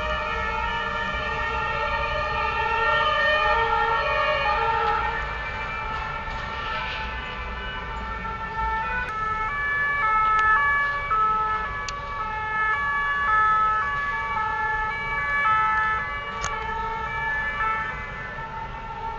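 Several emergency-vehicle sirens sounding at once, their tones overlapping. From about halfway through, one two-tone siren stands out, stepping steadily back and forth between a high note and a low note.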